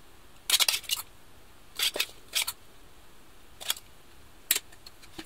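Metal utensils clinking and scraping against a tray while salad is served onto it: a quick run of sharp clicks about half a second in, then single taps about once a second.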